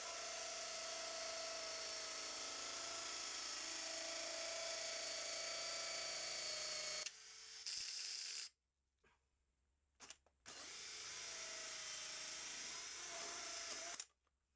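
A cordless drill spins an inside PVC pipe cutter within a 2-inch PVC drain pipe, cutting the pipe down from the inside. It runs steadily, stops about halfway, gives a short burst, then rests for about two seconds. It runs again for several seconds and stops near the end.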